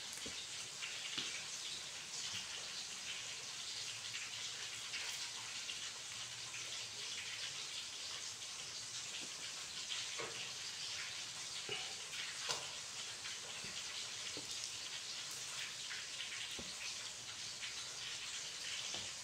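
A steady crackling hiss, with small scattered snaps as the heads are pinched off fresh flowers over a steel colander.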